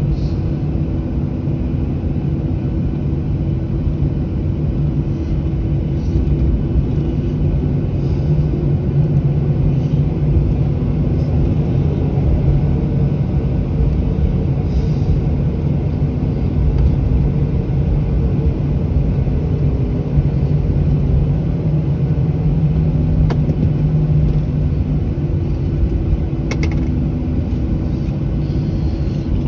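Airliner cabin noise in flight: a steady, loud low rumble of engines and airflow with a constant low hum.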